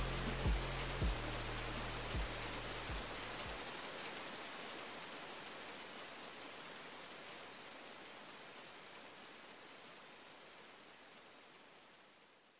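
Steady rain falling, fading slowly away until it is gone at the very end. A low rumble lies under it for the first few seconds and stops about three and a half seconds in.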